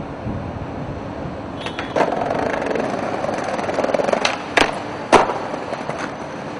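Skateboard wheels rolling over smooth concrete, with a few sharp clacks of the board hitting the ground, the loudest about four and a half and five seconds in.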